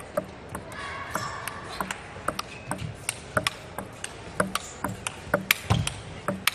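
Table tennis rally: the plastic ball clicking sharply off the rackets and the table in quick alternation, about three to four hits a second, over several seconds of play.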